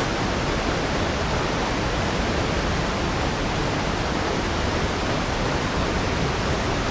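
Water rushing steadily over a river weir: an even, unbroken rushing noise.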